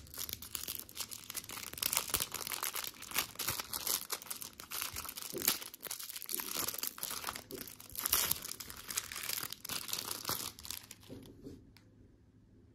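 Crinkling and crackling of a thin plastic lollipop wrapper as it is untwisted and peeled off a chocolate lollipop, in quick, irregular bursts that stop about a second before the end.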